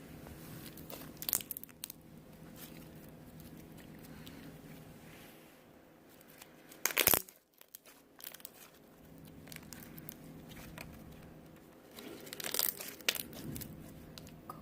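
Slime being handled, giving three bursts of crackling and crunching over a low background; the loudest burst comes about seven seconds in.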